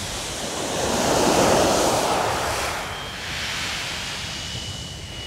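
Sea wave breaking and washing up a shingle beach, swelling about a second in and then drawing back.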